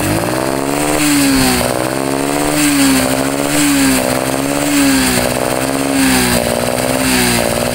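A Honda Karisma 125's single-cylinder four-stroke engine is revved and held at about three-quarter throttle. Its speed wavers up and down about once a second with a "ngong" sound, as if the revs were hitting a limit. The mechanic traces this not to the carburettor but to the ignition system: a dead sensor and a faulty charging circuit upsetting the CDI.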